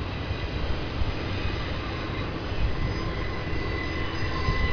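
Freight train of autorack cars rolling steadily past: a continuous rumble of steel wheels on rail, with a faint high wheel squeal coming in near the end.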